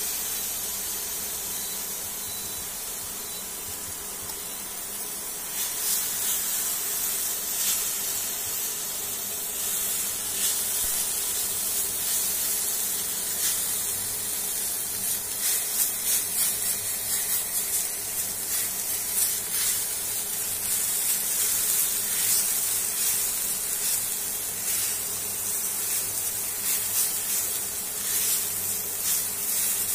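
Grated coconut dry-frying in a pan, stirred with a silicone spatula: a steady hiss, with quick, irregular scraping strokes of the spatula from about six seconds in.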